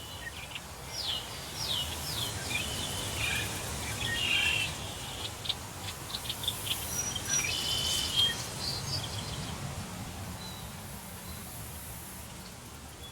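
Several small birds chirping and calling, with quick falling whistles, over a steady rush of wind through trees. The bird calls are busiest in the first two-thirds and thin out near the end.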